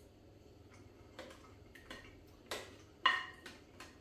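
Quiet eating sounds: a few soft clicks from chewing and cutlery, then a louder clink with a brief ring just after three seconds in.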